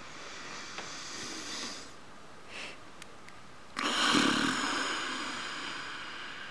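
A person's bored sighing: a breath drawn in, then a long, heavy sigh out about four seconds in that fades slowly.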